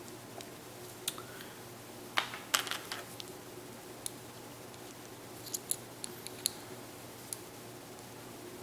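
Faint scattered clicks and taps of an Apple Watch and leather band being handled as the band's connector slides into the watch's band slot, with a small cluster of clicks about two seconds in and another past the middle.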